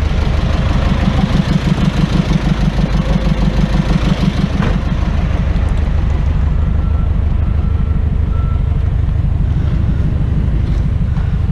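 Truck engine running with a continuous low rumble. It throbs rhythmically for the first four seconds or so, then runs steadier.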